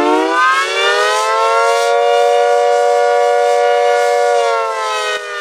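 Civil-defence siren wailing: several tones sounding together glide up in pitch for the first couple of seconds, hold steady, then begin to wind down near the end.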